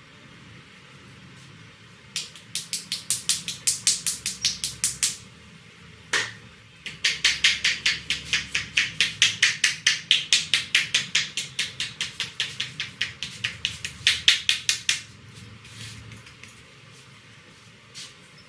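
Rapid rhythmic hand strikes on the head in a head massage, about six or seven crisp slaps a second. There are two runs, a short one of about three seconds and a longer one of about eight, with a single heavier slap between them.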